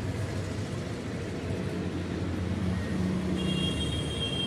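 Steady low engine hum of road traffic. A high steady tone, like a vehicle beep, comes in near the end.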